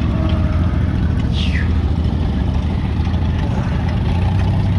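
A nearby engine running steadily with a deep, even rumble. About a second and a half in there is a brief, high, falling squeak.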